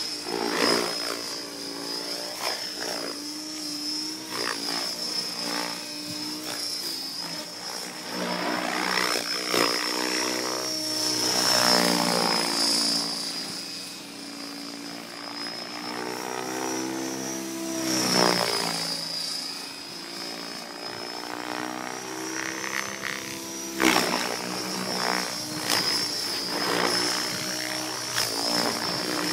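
Radio-controlled model helicopter in flight: a steady high whine from its drive over a rotor sound whose pitch keeps rising and falling as it manoeuvres. One sharp knock comes late on.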